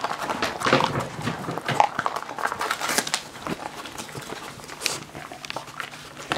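Dog chewing and crunching a treat, with irregular crunches and smacking clicks.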